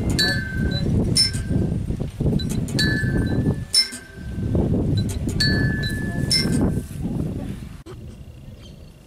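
Playground swing in motion, sounding short metallic ringing tones in pairs that repeat every second or two as it swings back and forth, over a low rumbling noise. The sound drops away near the end.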